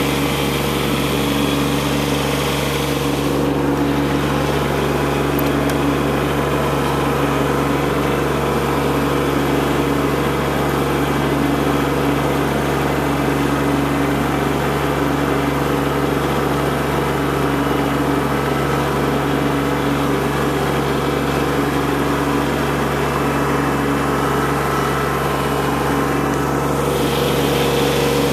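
Kubota B2601 compact tractor's three-cylinder diesel engine running steadily, heard from the operator's seat. A hiss above the engine drops away about three seconds in and comes back near the end.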